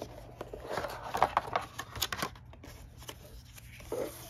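Board game cards and a plastic box insert being handled on a tabletop: light rustling with a few sharp clicks and scrapes, busiest from about one to two and a half seconds in.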